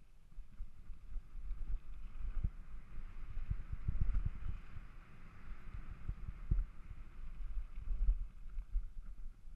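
Mountain bike riding over a dry dirt singletrack: wind buffeting the camera microphone and irregular low thuds and rattles as the bike hits bumps, with a hiss that swells around the middle.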